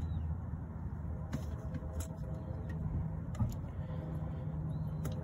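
A steady low rumble with a few faint, sharp clicks scattered through it.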